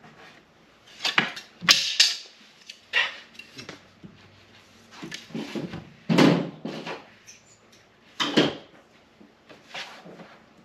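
A wooden window jamb board knocking and scraping against the window frame as it is fitted into the opening by hand: irregular knocks and scrapes a second or few apart.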